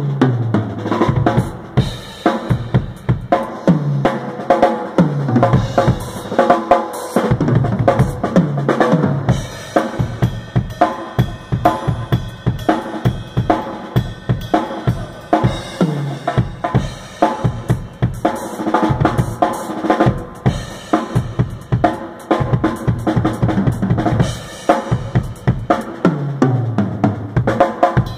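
DW drum kit played through a sound check: a continuous groove of kick drum, snare and cymbal hits, with low drum strokes that fall in pitch recurring every couple of seconds.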